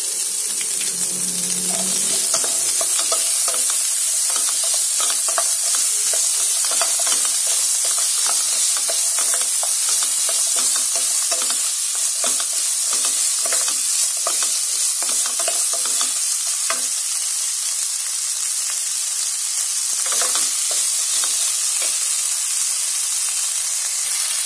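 Chopped onions and ginger-garlic paste sizzling in oil in a nonstick pan while being sautéd. A wooden spatula stirs them, scraping and knocking against the pan in quick, repeated strokes.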